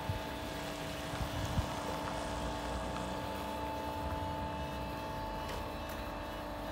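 Hyster J50AS battery-electric forklift running, its drive and hydraulic motors giving a steady whine of several held tones as it moves slowly.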